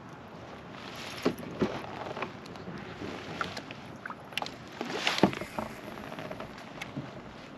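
Old Town Sportsman 106 kayak on moving water: splashing and sloshing with scattered sharp knocks and clunks, the loudest about a second and a half in and again about five seconds in.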